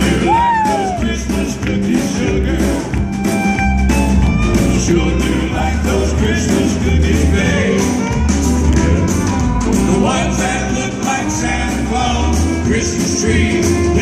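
Live country band playing an instrumental break with acoustic and electric guitars, bass, drum kit and keyboard over a steady beat, amplified through the stage PA.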